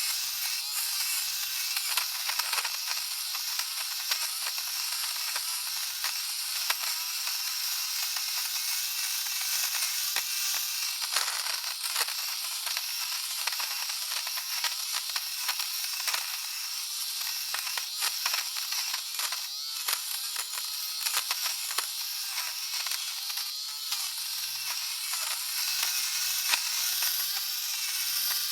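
Electric fabric shaver running while it is worked over fabric: a steady high buzz and hiss with a continual crackle of small scratchy clicks.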